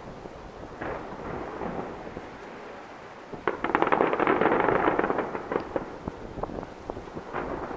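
Distant aerial firework shells bursting. A few scattered bangs and crackles are followed, about three and a half seconds in, by a rapid volley of cracks with rumbling that lasts about two seconds, and then by more scattered crackling.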